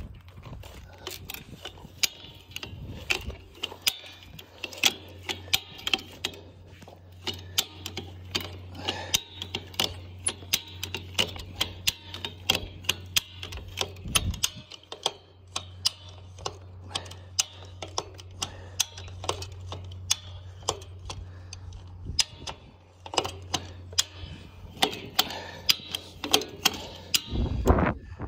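Ratchet of a hand-operated fence wire stretcher clicking as its handle is pumped along the toothed bar, tensioning a strand of barbed wire: a run of sharp, uneven clicks, one to three a second.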